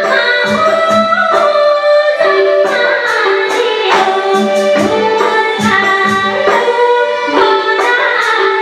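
A woman singing a Nepali song over instrumental backing with a steady drum beat.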